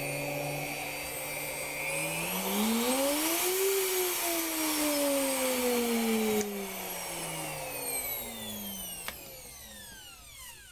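Bosch router's universal motor, wired straight past its failed switch, running with its whine rising and then falling in speed. About six seconds in the sound drops off suddenly, and the motor winds down with a falling whine toward a stop. A single click comes near the end.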